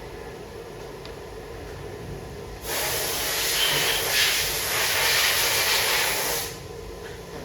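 A blast of compressed air hissing for about four seconds, starting a little under three seconds in and cutting off, over a steady low machine-shop hum.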